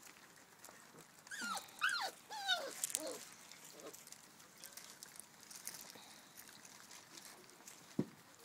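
Five-week-old puppies whining: a quick run of about four high, falling whines between one and three seconds in. A single short knock near the end.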